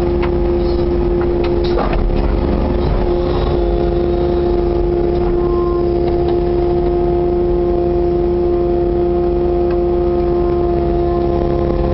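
Kubota KX080-4 compact excavator's diesel engine running steadily under working load, heard from inside the cab, with a steady whine over it. A few clunks in the first two seconds as the bucket dumps its soil.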